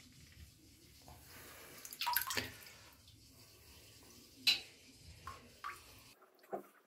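Water in a full bathtub draining through the plug hole just after the plug is pulled, with splashes of water around two seconds in and again at about four and a half seconds. This drain tests too slow, at 0.47 litres per second, below the standard minimum.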